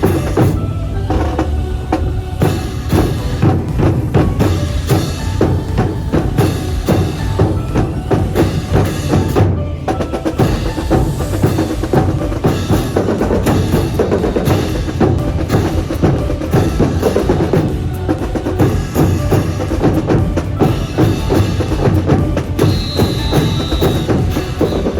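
Student marching brass band playing a march, with a strong drum and percussion beat.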